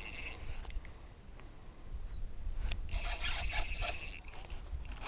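Daiwa spinning reel being cranked under heavy load, its gears and slipping drag whirring and ratcheting against a large hooked catfish. It comes in two stretches, right at the start and again about three seconds in, with a few clicks between.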